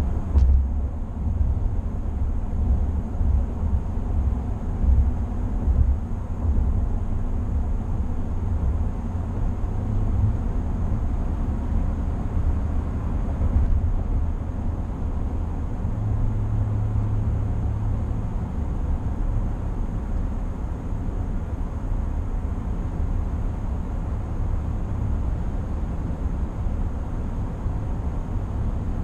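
Steady low rumble of tyre and wind noise inside the cab of a 2020 GMC Sierra 1500 AT4 pickup cruising at highway speed, with a slightly stronger low hum for a couple of seconds past the middle.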